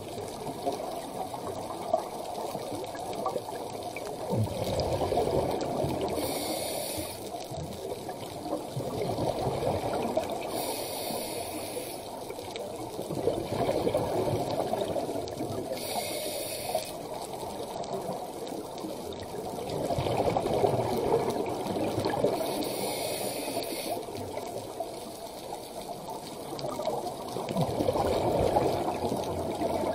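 Scuba breathing heard underwater through a regulator: a short hiss followed by a longer rush of exhaled bubbles, repeating every five or six seconds.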